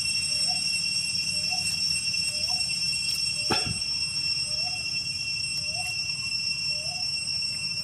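Night insects trilling steadily in several high tones. A short rising call repeats about every two-thirds of a second, and one quick falling squeak comes about three and a half seconds in.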